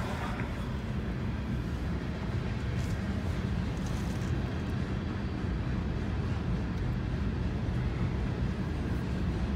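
Freight cars of a long mixed freight train rolling steadily past at a grade crossing: a continuous low rumble of wheels on rail, muffled as heard from inside a stopped car.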